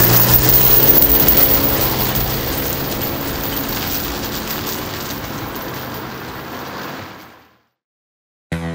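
A car pulls away past close by, its engine note rising at first, then engine and tyre noise fade steadily as it drives off and cut off suddenly. Music starts just before the end.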